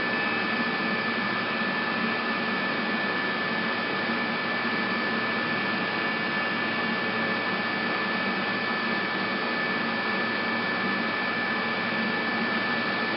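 AVIA FNE 50 N CNC tool milling machine running, a steady mechanical hum with a constant high whine.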